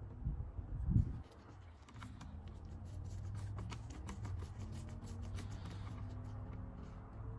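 Handling noise at a soldering bench: rubbing and light clicks from gloved hands working a soldering iron and tweezers at a flashlight head, with a louder bump about a second in, over a steady low hum.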